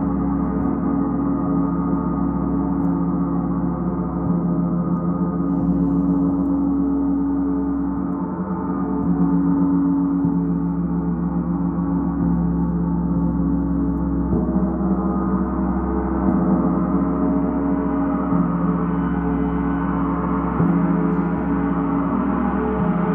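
Large suspended gong played with a felt-headed mallet: soft, repeated strokes keep up a continuous, shimmering wash of overlapping tones. The wash grows brighter toward the end.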